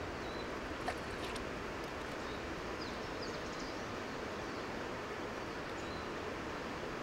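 Outdoor reservoir-side ambience: a steady, even hiss with a few faint bird chirps around the middle and a single sharp click about a second in.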